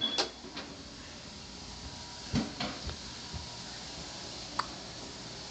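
A few scattered household knocks and clunks: one just after the start, a louder pair about two and a half seconds in, and a sharp click near the end, over a quiet steady room background.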